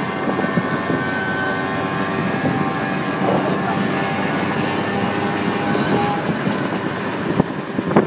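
Motorbike engine running at a steady speed while riding, its even drone over a constant rushing noise.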